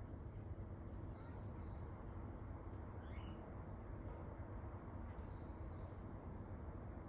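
A pet bird in the apartment upstairs calling faintly three times, muffled through the ceiling: short high chirps, the middle one a quick upward sweep, over a steady low hum.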